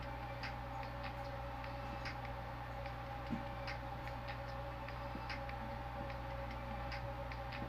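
Music leaking faintly from Treblab X3 Pro wireless earbuds worn in the ears. Mostly its ticking hi-hat beat comes through, about twice a second, over a steady background hum.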